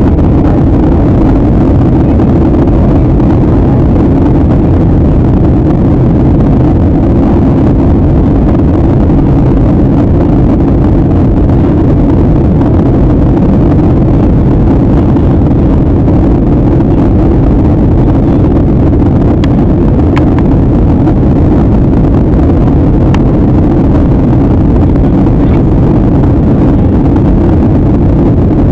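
Airliner cabin noise in flight: a loud, steady drone of the jet engines and rushing air, heavy in the low range, that does not change. A few faint ticks come through about two-thirds of the way in.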